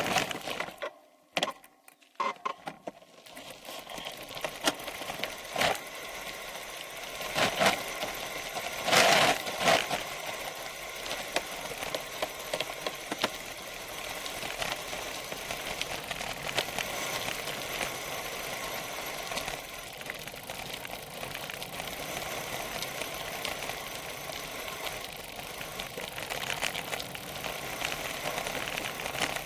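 Bicycle rolling down a gravel track: tyres crunching over the gravel while the bike and its seat-post camera rattle in a rapid, steady chatter. It goes briefly quieter near the start, with a few louder jolts from bumps several seconds in.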